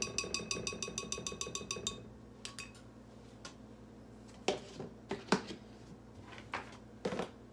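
A metal spoon taps rapidly against a ceramic bowl for about two seconds, and the bowl rings. A few separate knocks follow later as containers are handled and set down on the counter.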